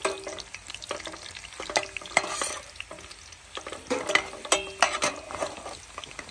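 Chiles frying in hot oil in a small pan, sizzling, while a utensil stirs and scrapes them with irregular clicks and knocks, busiest about two seconds in and again around four to five seconds in.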